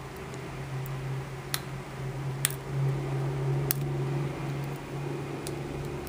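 Lock pick working the pins of an ASSA pin-tumbler cylinder under tension, giving a few sharp metallic clicks, the loudest about two and a half seconds in. A steady low hum runs underneath.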